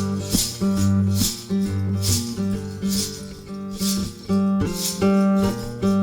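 Background music: an instrumental passage of a blues song, plucked and strummed guitar with a shaker or tambourine keeping the beat, no singing.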